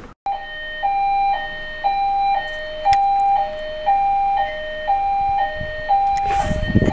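Building fire-alarm evacuation signal: an electronic hi-lo tone switching between a higher and a lower pitch about every half second. It starts abruptly a fraction of a second in.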